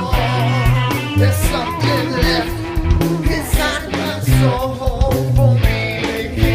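Rock song with electric guitar, a driving bass line, drums and a singing voice.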